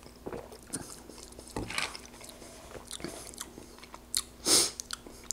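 Close-miked mouth sounds of tasting an iced cola: a sip, swallows, and small lip and tongue smacks. A dull knock about a second and a half in as the plastic cup is set down on the tray, and a short hissing breath near the end.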